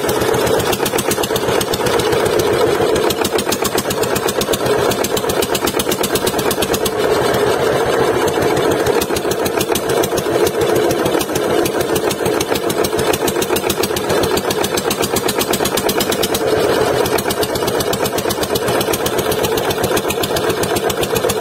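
Fishing boat's engine running steadily with a fast, even beat.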